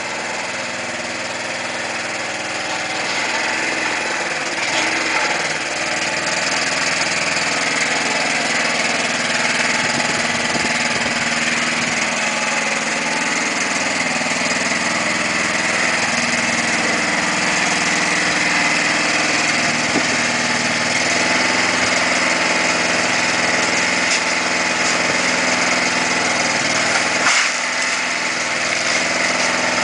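Small petrol engine of a Dori Hercule power barrow running steadily, getting louder over the first few seconds, with a few short knocks near the end.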